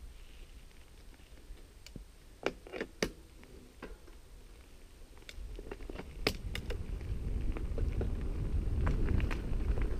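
Giant Trance mountain bike rolling down a dirt singletrack: sharp clicks and rattles from the bike over bumps, then a low rumble of tyres and wind on the microphone that builds steadily from about halfway as speed picks up.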